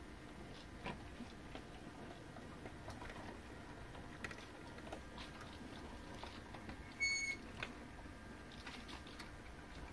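O gauge model freight wagons rolling over the track: scattered light clicks of wheels crossing rail joints and pointwork over a steady low hum. A brief high-pitched beep about seven seconds in.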